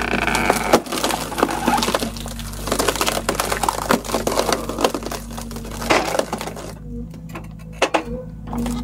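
Poplar wood cracking and splintering under machine force: a dense run of sharp cracks and crunches over a steady low hum, thinning out about seven seconds in.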